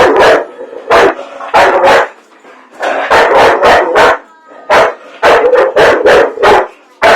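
A dog barking loudly and repeatedly, about a dozen short barks in irregular runs of one to three with brief pauses between.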